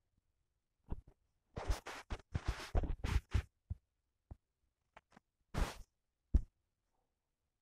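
Scratchy rubbing and clicking handling noises in short irregular bursts, with a dense cluster a couple of seconds in, another scrape later and a sharp click near the end.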